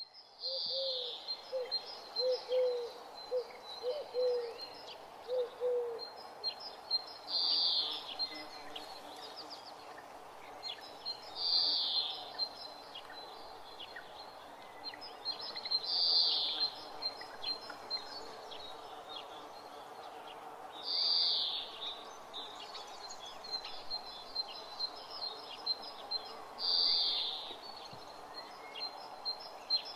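Forest birds calling. A loud, high call comes every four to five seconds, with quick ticking notes between. A lower short call repeats about eight times in fast succession in the first six seconds. Underneath is a steady background rush.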